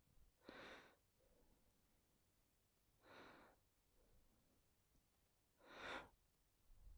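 Near silence with three soft breaths close to the microphone, each about half a second long and roughly two and a half seconds apart.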